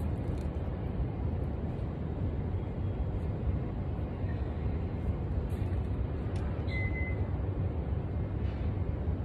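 Steady low rumble of city background noise from traffic and buildings, with a faint short high chirp about seven seconds in.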